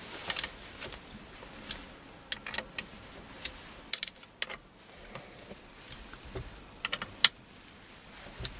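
Irregular light metallic clicks and taps of an Allen key working the 6mm Allen bolts of an aluminium motor clamp on a milling slide, with the sharpest tick about seven seconds in.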